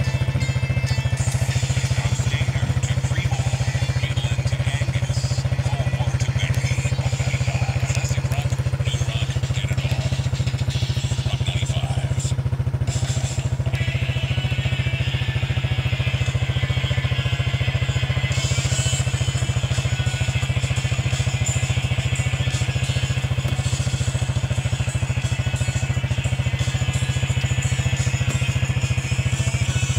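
A steady low mechanical hum that holds constant without a break, like a small motor or appliance running.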